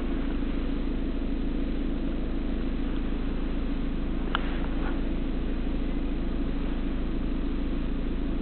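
2010 Vauxhall Astra petrol engine idling steadily, heard from inside the cabin, with a light click about four seconds in.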